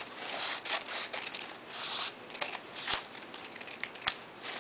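Scissors cutting lengthwise along a paper strip: a run of short rasping snips and paper rustling, with a few sharp clicks.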